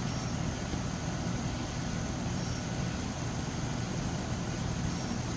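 A steady low rumble with no clear strokes or changes.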